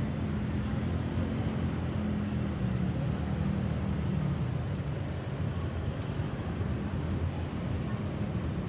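Road traffic: a steady rumble of vehicle engines and tyres, with a low engine hum that fades about four seconds in. No siren is sounding.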